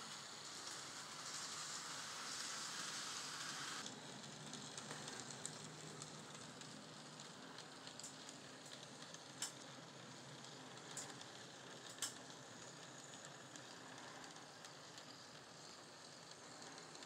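N scale model trains running on the layout track: a faint, steady hiss of wheels and small motors. It is louder for the first four seconds, with a few light clicks near the middle.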